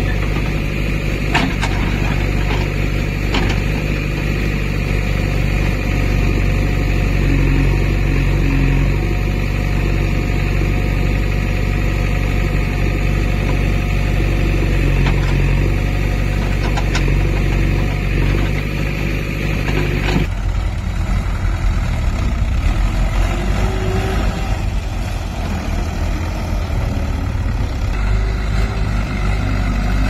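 JCB 3DX backhoe loader's diesel engine running steadily under load while digging, with a few short knocks. About two-thirds of the way in it gives way abruptly to a Mahindra 575 tractor's diesel engine driving with its trolley.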